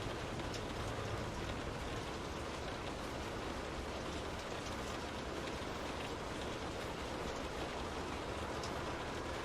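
Steady rain falling, with a dense even hiss and scattered small drop ticks against a window.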